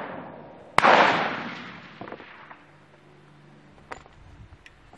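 .40-calibre pistol fired once about a second in, the report ringing out and fading over about a second and a half, with the tail of a previous shot dying away at the start. A few light clicks follow as the pistol is set down.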